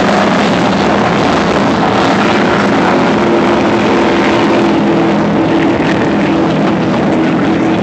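Motorboat engines running steadily under a loud rushing noise of wind and water, with a second, higher engine tone joining about two seconds in.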